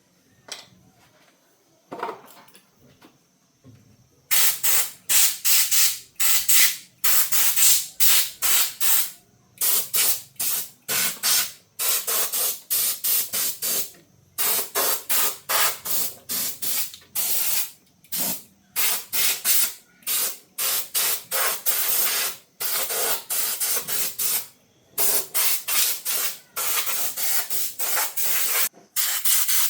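Spraying in short, rapidly repeated hissing bursts that start about four seconds in and keep going. Before that come a couple of faint knocks.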